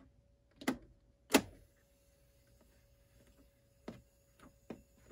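Button clicks from a TEAC 144 cassette portastudio: two sharp clicks about a second in, the second the louder, as its tape-transport buttons are pressed. A faint steady tone follows, and three lighter clicks come near the end.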